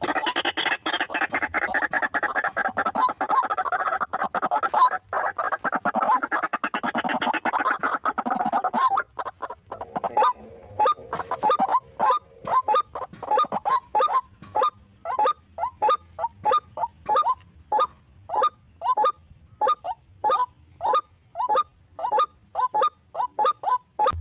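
White-breasted waterhen calling: a dense run of harsh croaking calls for about the first nine seconds, then a steady series of single 'kwak' notes, about two a second.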